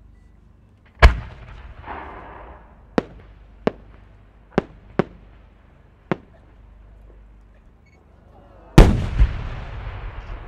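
A 10-go (about 30 cm) firework shell is fired from its mortar with one loud boom about a second in, followed by several fainter sharp cracks. Near the end the shell bursts overhead with a second loud boom that trails off in a long rumble.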